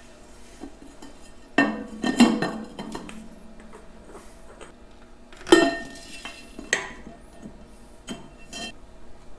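Metal clinks and knocks as a steel diesel fuel filter housing is fitted down over its filter element and onto the base, with a wrench clinking on the top nut near the end. There are about six separate sharp clinks, the loudest about halfway through.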